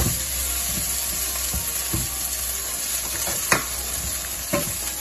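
Diced char siu sizzling in hot oil in a wok as a silicone spatula stirs it, with a few sharp knocks of the spatula against the pan, the loudest about three and a half seconds in.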